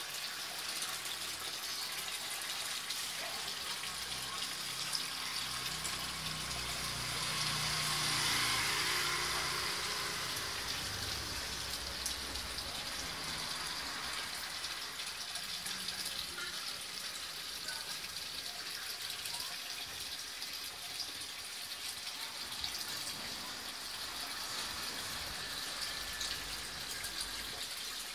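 Steady rushing noise that swells for a few seconds about a third of the way in.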